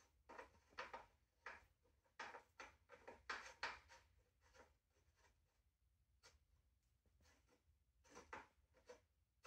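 Faint rubbing and scraping in short, irregular strokes as the handlebar is worked against the top of an electric scooter's stem while being fitted.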